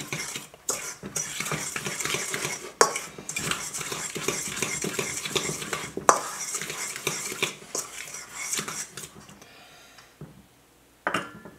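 Dry flour mixture being stirred in a stainless steel mixing bowl: steady scraping of a utensil against the metal, with a few sharp clinks. The stirring stops about nine seconds in.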